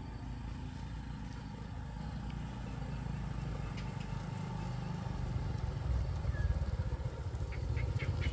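A vehicle engine running with a low rumble that grows gradually louder.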